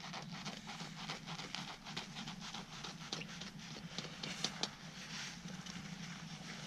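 Folding knife sawing through the crisp toasted crust of a hot sandwich: a quick, irregular run of small crunching crackles, a couple louder about two-thirds of the way through.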